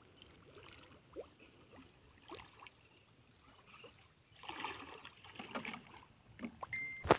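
Faint swishing and sloshing of shallow floodwater as waders drag a bamboo-poled fishing net through it, busier about halfway through. A sudden loud thump right at the end.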